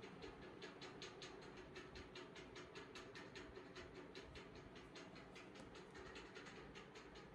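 Near silence with a faint, rapid, even ticking, about five clicks a second.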